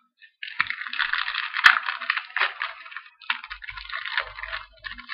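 A trading card pack's wrapper crinkling as it is torn open and pulled apart, in three stretches of crackling with one sharp snap just under two seconds in.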